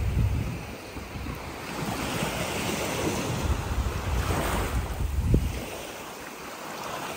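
Small surf breaking and washing up on a sandy beach, with wind buffeting the microphone in gusts and a short thump about five seconds in.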